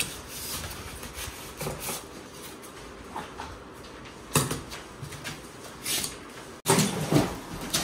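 Polystyrene foam packing and a cardboard box being handled during unboxing: scattered rubbing and scraping with a few sharper knocks as foam pieces are shifted and lifted out. The loudest handling noise comes near the end.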